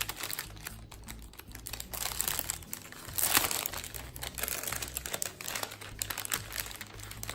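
Packaging crinkling and rustling as the planner add-on kit is handled and opened, with a louder burst of crackling about three seconds in.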